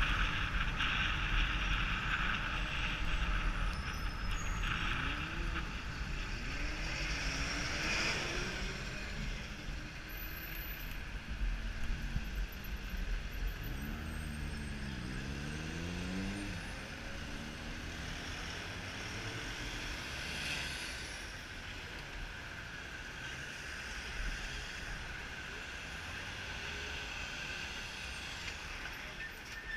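Road traffic at a busy junction: car, van and truck engines moving past close by, with an engine note gliding up and down a few times as vehicles pull away, heard through a camera's microphone.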